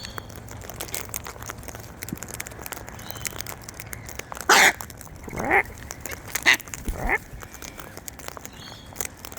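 Wild cockatoos squawking: four loud calls in the second half, the second one sliding down in pitch, over a scatter of small clicks from the birds pecking at seed.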